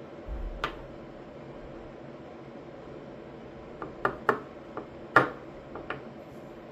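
Sharp clicks and taps of small metal lock parts being handled during disassembly of a Clavis F22 lock. There is a dull bump and one click near the start, then a quick run of about seven clicks, the loudest a little after five seconds in.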